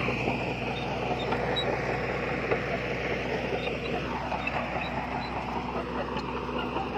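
Heavy diesel earthmoving machinery running steadily, with a steady low engine note. A higher tone falls in pitch about four seconds in.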